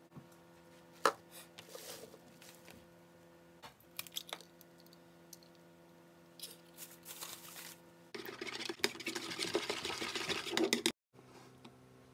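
Small taps and clicks of hands dusting chicken slices with flour on a tray, with one sharp click about a second in. About eight seconds in, a raw egg is beaten rapidly in a plastic bowl, a fast clattering for about three seconds that stops suddenly.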